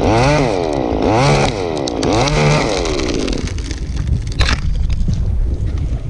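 Two-stroke chainsaw revving up and falling back about once a second, three times, then stopping about three and a half seconds in. After that, wind rumbles on the microphone with a few light knocks.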